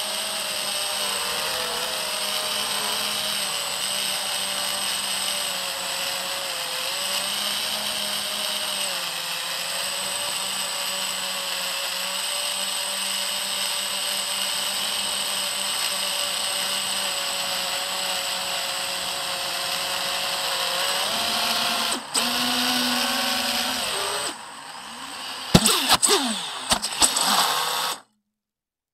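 FPV quadcopter's motors and propellers whining, pitch rising and falling with the throttle, heard from the onboard camera. Near the end the whine drops away and a cluster of sharp cracks and snaps follows as the quad crashes into pine branches, then the sound cuts off.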